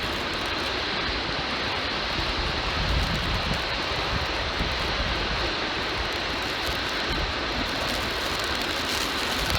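Waterfalls pouring: a steady, even rushing noise, with irregular low rumbles of wind on the microphone underneath.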